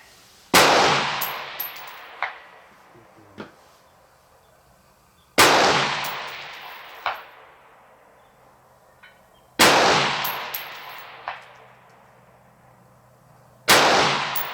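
Four rifle shots about four seconds apart, each echoing away over a couple of seconds. About a second and a half after each shot comes a fainter sharp clang: the bullet striking the distant steel target.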